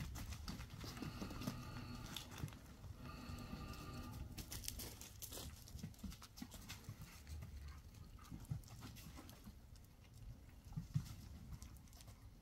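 Wood fire crackling and popping in a burn barrel, with scattered sharp clicks. Twice in the first four seconds, a dog gives a short, steady whine of about a second.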